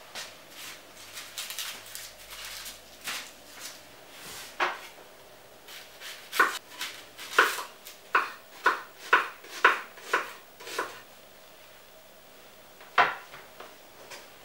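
Kitchen knife cutting an onion on a wooden cutting board: a run of about eight sharp chops, roughly two a second, through the middle, with softer knocks and rustles before it and a single sharp knock near the end.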